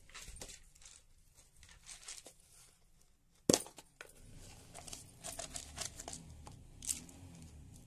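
Close handling noises: rustling and crinkling, like plastic being handled, broken by scattered clicks. There is one sharp knock about three and a half seconds in, the loudest sound, and denser crackling follows it.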